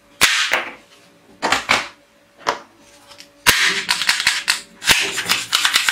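Plastic toy guns firing: sharp cracks and clicks, a few single shots near the start, then short clusters and a fast rapid-fire run near the end.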